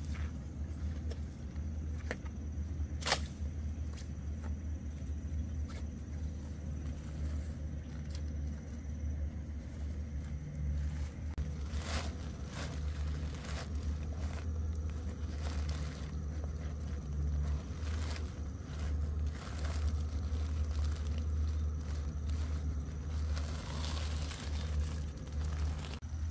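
A small engine running steadily with a low hum, with a few sharp clicks over it.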